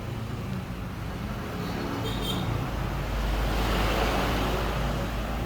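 Steady rumble of road traffic, swelling as a vehicle passes about three seconds in and easing off near the end.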